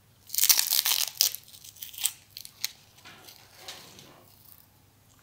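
Protective wrapping crinkling and tearing as it is peeled by hand off a distributor shaft: a loud burst of crackling in the first second or so, then scattered crackles that fade out about halfway through.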